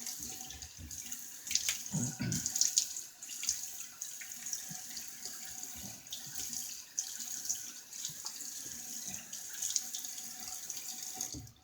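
Bathroom tap running into a sink, with irregular splashing as water is used for shave prep. It cuts off near the end.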